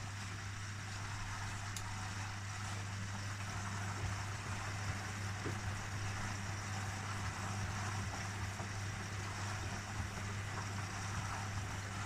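Hoover Dynamic Next washing machine running a service test cycle: a steady motor hum with an even rush of water noise over it.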